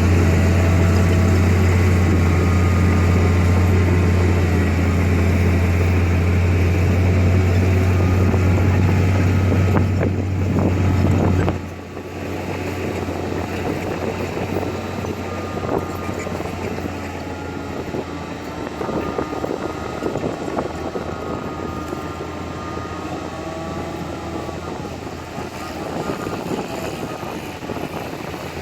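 Heavy diesel construction machinery running at a work site: a loud low engine drone that drops off abruptly about eleven seconds in, after which the engine sound carries on quieter with a wavering whine over it.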